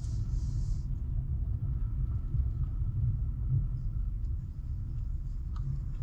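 Low, steady rumble of a car driving, engine and tyre noise on the road, with a brief hiss in the first second.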